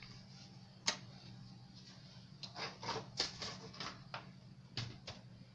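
Plastic pattern-making ruler handled on paper: a sharp tap about a second in as it is set down, then a run of small clicks and scrapes as it is shifted into place, over a low steady hum.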